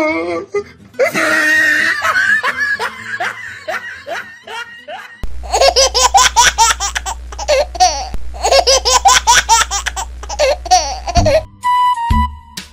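A woman laughing hard in repeated bursts. About five seconds in, a louder laugh takes over for about six seconds, repeating the same pattern twice over a steady low hum. Short steady electronic tones follow near the end.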